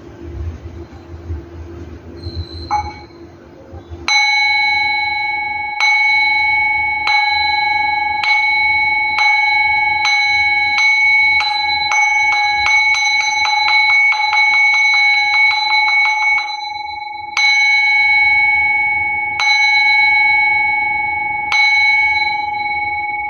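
A Buddhist ritual bell is struck to close a chanting session. The first strike comes about four seconds in, after a faint low rumble. Single strikes come at a slowing-to-quickening pace, build into a fast roll that stops suddenly, and end with three spaced strikes, each left to ring out.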